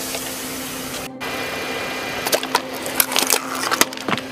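Car tyre rolling over and crushing plastic bottles and other crunchy objects on asphalt: a steady low hum with a run of sharp cracks and crunches in the second half.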